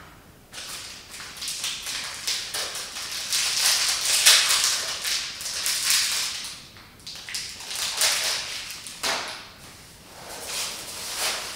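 Crinkling and rustling of a plastic snack-bar wrapper being opened and handled, on and off with short pauses.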